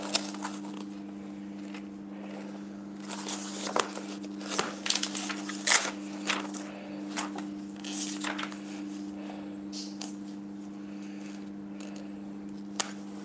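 Glossy catalogue pages being leafed through: a series of short paper rustles and flicks, irregular and scattered, over a steady low hum.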